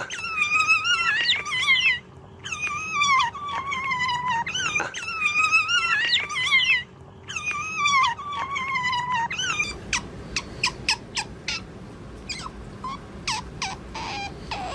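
An animal whining in four long, high, wavering cries, followed by a run of short squeaks and clicks.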